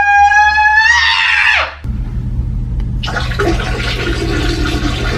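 A person's loud, high shriek that rises and is held, cutting off about two seconds in, followed by a steady rush of running water.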